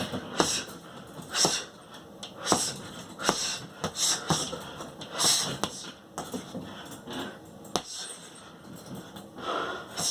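Boxing punches landing about once a second, each with a sharp hissing exhale, through the first five seconds or so, then a few scattered hits after a pause.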